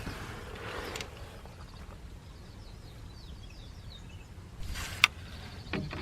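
Birds chirping faintly over outdoor background noise, then a sharp click about five seconds in, followed by a couple of softer knocks near the end.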